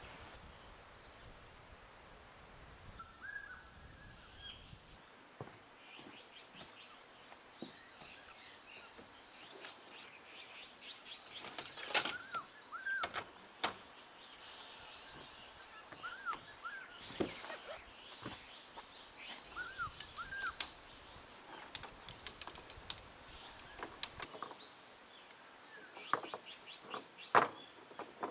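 Birds chirping: short, arched calls in pairs every few seconds, with quick high trills between them. Scattered sharp clicks and taps are mixed in, the loudest about twelve, seventeen and twenty-seven seconds in.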